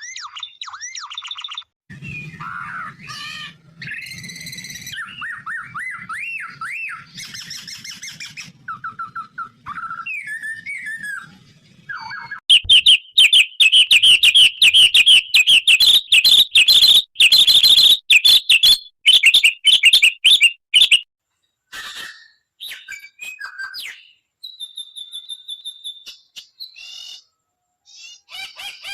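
A string of different bird calls and songs: whistles, warbles and chirps, cut together with abrupt breaks. The loudest part is a long run of rapid, shrill repeated chirps in the middle.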